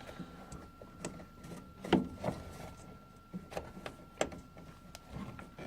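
Scattered light clicks and knocks of hands and tools working on furnace parts, over a faint steady high whine.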